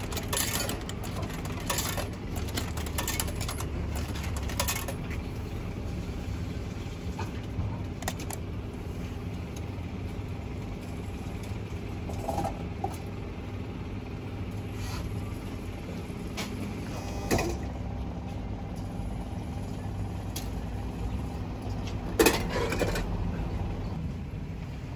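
Ramen vending machine running its cooking cycle: a steady mechanical hum with scattered clicks and knocks inside the machine. A few clicks come near the start as its button is pressed, and the loudest knock comes near the end.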